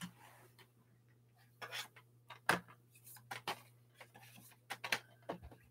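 Objects being handled and moved about on a shelf: a scatter of sharp clicks and knocks, loudest about halfway through and again near the end.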